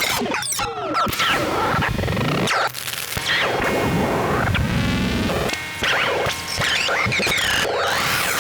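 Battery-powered modular synthesizer improvising a dense, noisy texture of swooping glides and chirps that stops short and restarts several times.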